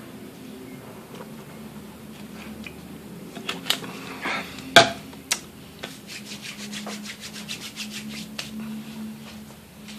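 Cat licking and lapping at milk, heard as a quick, even run of soft ticks at about six a second near the end. Before it come scattered taps and one sharp knock near the middle.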